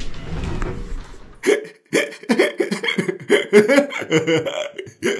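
Low background noise of a busy exhibition hall, then, about a second and a half in, an edited-in run of short, choppy bursts of laughter that sound thin.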